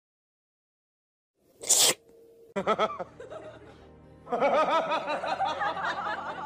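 A cat sneezes once, sharp and loud, about one and a half seconds in, out of silence. Music with a warbling, voice-like melody follows.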